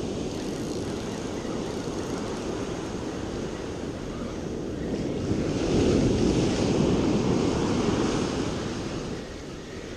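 Ocean surf washing up a sandy beach, mixed with wind buffeting the microphone; the rush grows louder for about three seconds past the middle, then eases.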